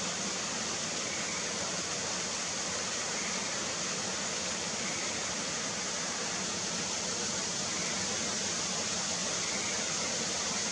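Faint, short calls of Schlegel's green tree frogs, repeating every second or two, under a steady hiss like rushing water.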